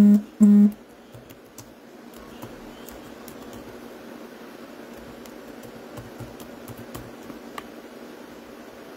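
Two short beeps in quick succession, about half a second apart, followed by faint scattered clicks and taps over a steady hiss.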